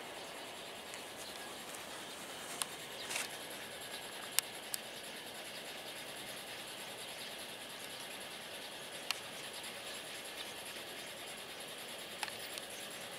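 Quiet outdoor background: a steady hiss with a few faint, scattered clicks and taps.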